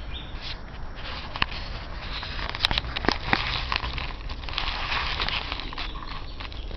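Close rustling and crackling against the microphone, with scattered sharp clicks.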